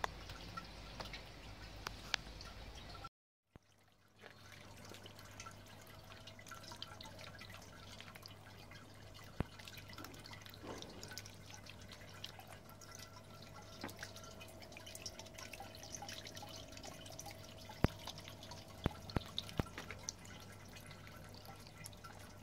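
Small garden water fountain: water trickling over a steel sphere and dripping into its basin, with many small, sharp drips. The sound cuts out briefly about three seconds in, and after that a low steady hum runs under the water.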